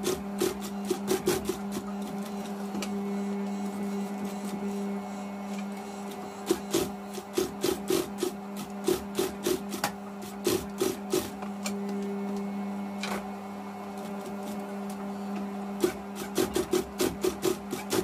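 Industrial sewing machine stitching a sandal strap, its motor humming steadily. In stretches the needle and feed tick at an even beat of about five strokes a second; between them the machine runs smoothly without a distinct beat.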